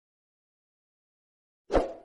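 Dead silence, then a single short hit near the end that fades within a fraction of a second.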